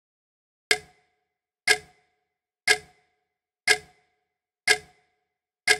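Clock-ticking sound effect: six sharp ticks, one each second, starting just under a second in, each with a short ring. It counts off the answer time.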